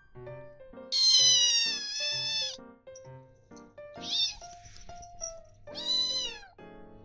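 Short-legged kitten meowing loudly, three high-pitched meows: a long one, a short one and a medium one. She is begging for her breakfast before it is ready. Soft background piano music plays underneath.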